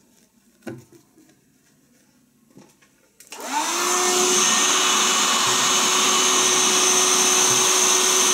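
A few faint knocks, then a QuickFlex handheld vacuum cleaner is switched on about three seconds in. Its motor spins up quickly and runs at a steady pitch with a loud hiss of air.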